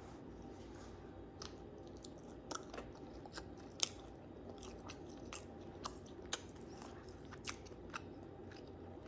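Someone eating chicken biryani: chewing, with irregular crisp clicks and crunches over a faint steady hum.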